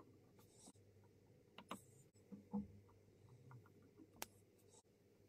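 Near silence with a few faint, short clicks and light taps, from a needle applying varnish to the head of a tied fly held in a vise.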